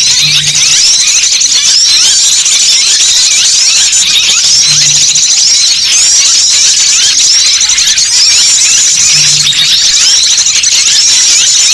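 Dense, loud chorus of many small birds chirping and twittering at once, an unbroken mass of high-pitched calls used as a lure recording for small birds. A brief low hum recurs about every four and a half seconds.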